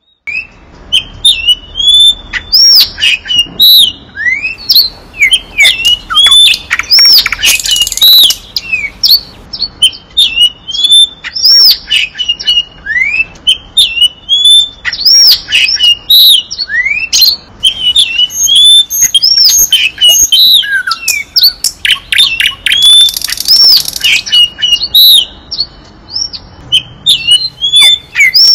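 Nightingale singing a long, varied song of quick rising and falling notes, broken twice by louder harsh, buzzy phrases.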